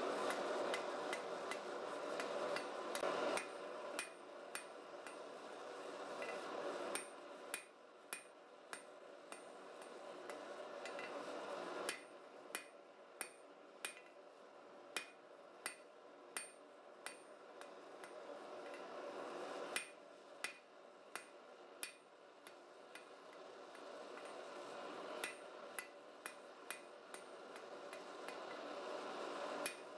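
Blacksmith's hand hammer striking a red-hot steel bar on an anvil, drawing out a taper: runs of blows at about one to two a second, each with a short metallic ring, broken by a few pauses as the bar is turned. A steady rushing noise runs underneath.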